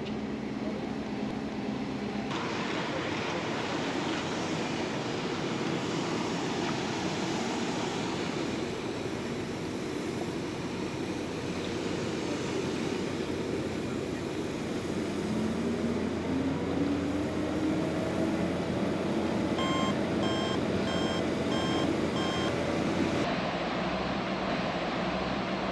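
City street ambience: a steady wash of traffic noise, with a vehicle engine rising in pitch in the middle and a row of five short electronic beeps about twenty seconds in. The background changes abruptly twice.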